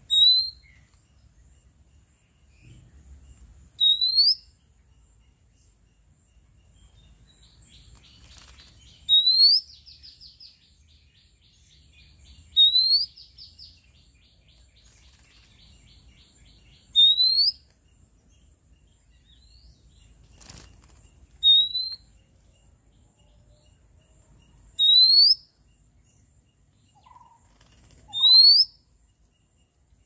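Oriental magpie-robin giving a short rising whistle, repeated about every three to four seconds, with a fast churring rattle under the calls from about eight to seventeen seconds in. A single sharp click comes about twenty seconds in.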